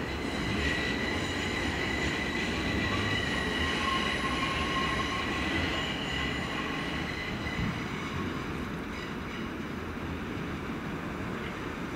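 Merseyrail electric multiple-unit train running at a station platform: low rumble with a steady high-pitched whine of several tones that fades out about eight seconds in.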